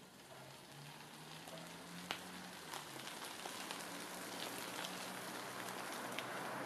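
Faint outdoor background: a steady hiss that slowly grows louder, with scattered light ticks (one sharper about two seconds in) and a low steady hum underneath.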